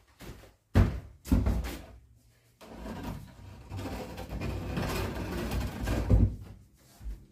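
Long wooden board bumping twice, then scraping for a few seconds as it is tilted up and slid against the ceiling joists, ending with a heavy thump.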